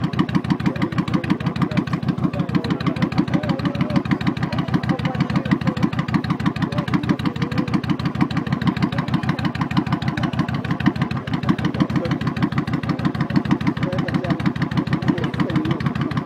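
Harley-Davidson V-twin engine idling steadily through its exhaust, an even train of rapid exhaust pulses.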